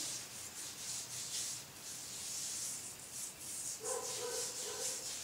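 Fingertips rubbing a gritty olive oil and baking soda paste over facial skin in a massaging motion: a soft, faint scratchy rubbing in repeated strokes. About four seconds in, a faint pitched whine joins for about a second.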